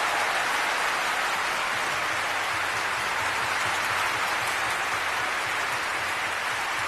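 Concert audience applauding steadily, a dense even clapping that follows the concerto's final chord.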